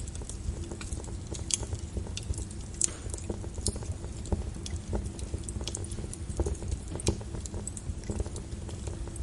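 Wood fire burning in a fireplace: irregular crackles and sharp pops over a steady low rumble of the flames.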